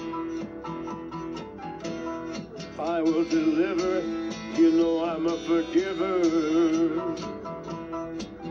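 Background music: a song with strummed acoustic guitar and a singing voice that wavers in pitch, strongest from about three to seven seconds in.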